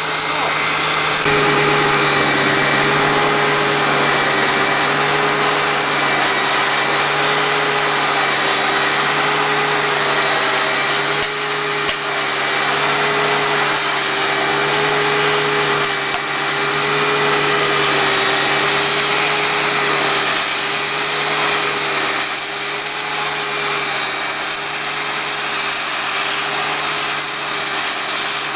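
Hitachi EX200 excavator's engine and hydraulics running steadily under throttle, with a steady whine, stepping up in level about a second in.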